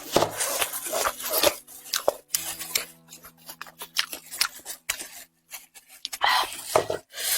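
Close-miked eating sounds of spiced sheep's head: irregular wet chewing, crunching and tearing of the meat and skin in quick short bursts.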